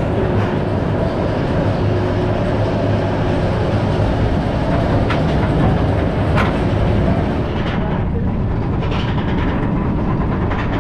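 Kumba, a Bolliger & Mabillard steel roller coaster, its train running along the track with a steady, loud rumble and a few sharp knocks partway through.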